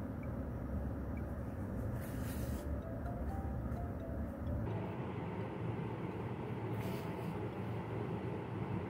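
Steady low rumbling background noise that shifts in tone about halfway through, with two faint brief hisses.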